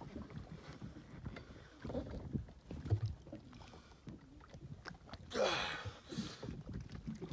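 Lake water lapping and knocking against a small boat's hull, with light wind. About five seconds in comes a short, louder breathy vocal sound.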